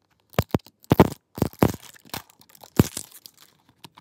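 Plastic wrapping being torn and crinkled off an LOL Surprise toy capsule ball, in several short, sharp rips.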